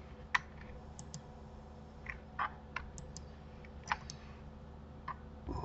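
Computer mouse and keyboard clicking irregularly, about a dozen clicks, over a faint steady hum; a low soft thump near the end.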